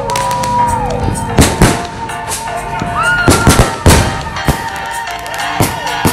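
Fireworks going off: about ten sharp bangs at irregular intervals as rockets launch and burst, with a few gliding whistles among them.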